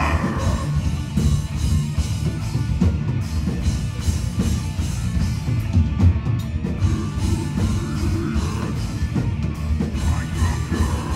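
Live metal band playing loud: a fast-hitting drum kit under distorted guitars and bass, with little or no singing in this stretch.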